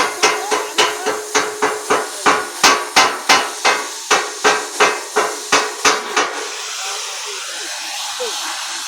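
Hammer striking metal in a fast, even rhythm, about four ringing blows a second, stopping about six seconds in. A steady hiss follows.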